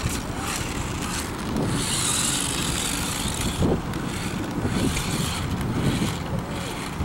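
Small battery-powered RC stunt car driving over concrete, its electric motor whirring and wheels rolling, mixed with low wind buffeting on the microphone.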